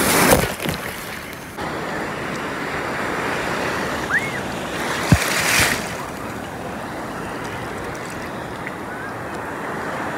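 Ocean surf breaking and churning around a phone held at water level. A loud rush of white water hits right at the microphone at the start and again about five seconds in.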